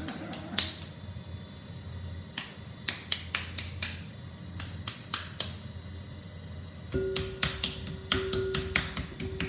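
Sharp taps and slaps of hands working and pressing small lumps of soft clay. About seven seconds in, an electric potter's wheel starts and its motor hums steadily under the taps.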